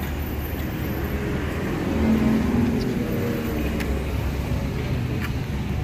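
Road traffic on the street: a steady low rumble, with one vehicle's engine growing louder for about a second, around two seconds in.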